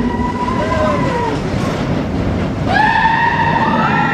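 Roller coaster train running with a steady rumble while riders scream in long, held high notes; a fresh loud scream starts about two and a half seconds in.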